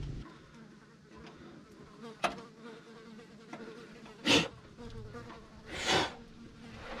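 A fly buzzing close by in a steady, wavering drone, with a sharp click about two seconds in and two short, louder scuffing noises around four and six seconds in.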